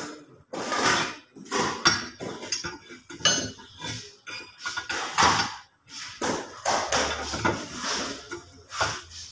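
Steel rebar and a hand bending bar clanking and scraping against a steel bending jig as the bar is bent by hand. It is an irregular run of metallic clanks, roughly one or two a second.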